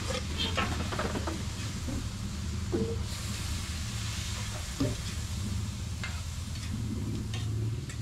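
Shredded boiled chicken sizzling in hot oil with sautéing onion and garlic in a steel wok on high heat, stirred with a metal spatula that now and then scrapes and taps the pan. A low steady hum runs underneath.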